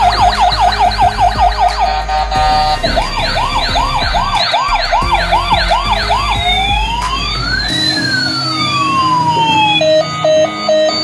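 Bump-and-go toy police car's electronic siren sound effect: a fast whooping siren repeating about six times a second, then a slower rising wail about three times a second, then long slow wails gliding up and down across each other. Near the end the toy's short beeping tune starts again.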